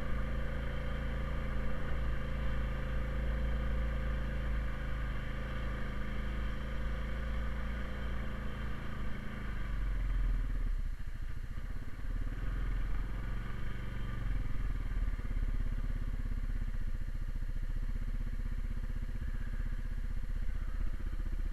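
Honda Rubicon ATV's single-cylinder engine running under way. It drops to a lower note about ten seconds in as the quad slows, then picks up again as it accelerates away.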